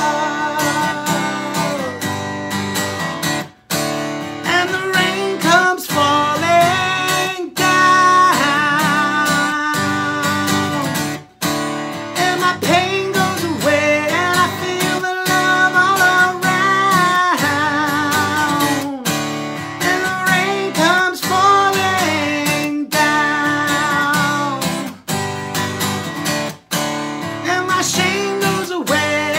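A man singing over a strummed Takamine acoustic guitar, an acoustic rock song, with a few brief breaks between strums.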